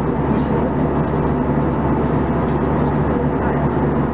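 Steady cabin noise inside an Airbus A320-214 cruising at altitude: the rush of air over the fuselage with the even drone of its CFM56 turbofan engines underneath.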